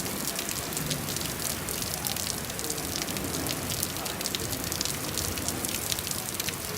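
Steady rain falling, with a dense run of sharp ticks from individual drops striking a hard surface.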